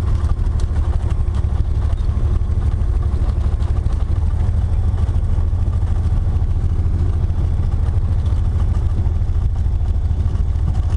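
Cessna T-41's 210 hp Continental IO-360 engine and propeller running steadily at low taxi power, heard from inside the cabin.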